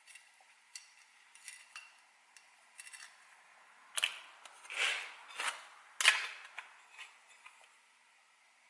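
Hard objects being handled on a workbench: a run of light clicks and taps, then four sharper clacks in the middle, fading to quiet near the end.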